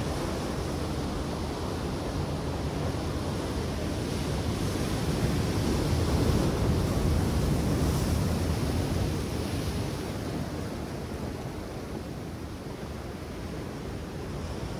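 Ocean surf washing in, mixed with wind on the microphone; it swells for a few seconds around the middle, then eases back.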